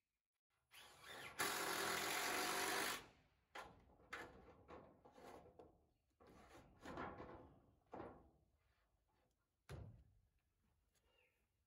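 Cordless drill running for about a second and a half, driving a fastener into the veranda roof, followed by a series of sharp knocks and clanks.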